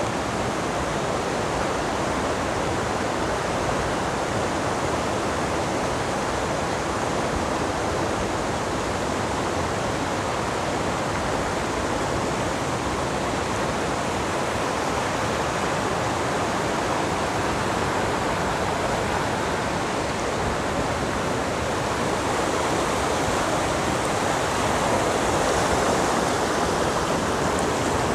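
Mountain river stream running, a steady, dense rush of water that grows slightly louder near the end.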